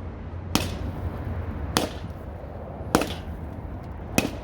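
Four sharp cracks, evenly spaced about a second and a quarter apart, over a low background.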